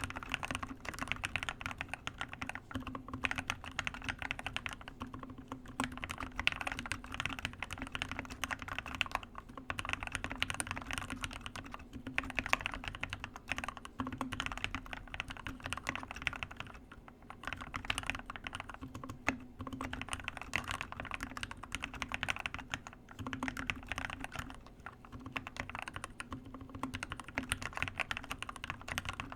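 Continuous typing on a Keychron K6 mechanical keyboard with Gateron Black Ink switches, lubed and filmed with Krytox 205g0, giving a deep, thocky clack of keystrokes with brief pauses between bursts.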